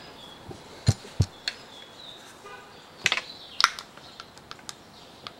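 Scattered light clicks and knocks of a Zenith Stromberg carburettor water choke housing and its small metal parts being handled and set down on a workbench.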